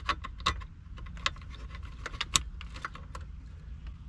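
Plastic wiring-harness connectors and wires being handled and plugged into the back of a car stereo head unit: scattered sharp clicks and small rattles, the loudest about two and a half seconds in, over a steady low rumble.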